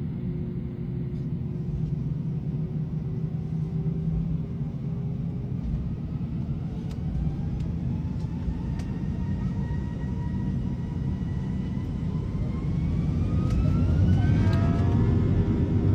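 Airliner jet engines heard from inside the cabin: a steady low rumble with a whine that climbs in pitch over several seconds as the engines spool up, growing louder near the end.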